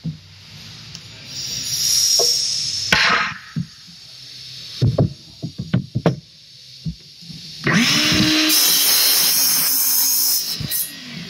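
A few knocks as a wooden board is set on the saw's metal table. Then, a little past halfway, a DeWalt compound miter saw starts and cuts through the board for about three seconds, its motor running steadily under the noise of the blade in the wood, before it stops.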